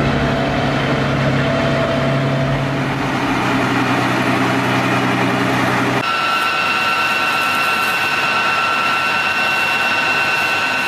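Heavy multi-axle road-mobile missile launcher's diesel engine running as it drives, a steady low drone. About six seconds in this cuts sharply to a hissing high-pressure water spray with a steady high whine, as the launcher is hosed down for decontamination.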